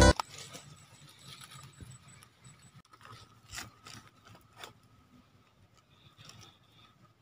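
Faint, sharp clicks and small knocks from an air rifle and its scope being handled while aiming, about five of them spread over a couple of seconds in the middle. Background music cuts off at the very start.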